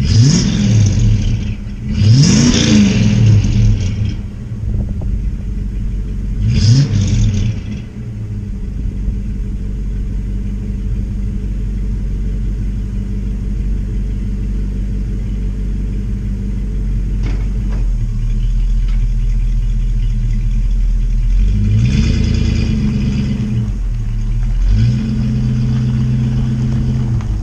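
Class A motorhome engine running with a steady low drone, revving up and dropping back several times: around the start, two and seven seconds in, and twice near the end.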